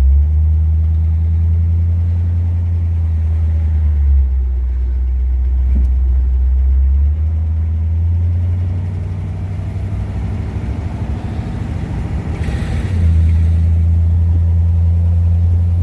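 1957 Ford Thunderbird's V8 engine pulling away and running under load. The low engine note changes step a few times, about 4, 7 and 13 seconds in, as the car works through its gears.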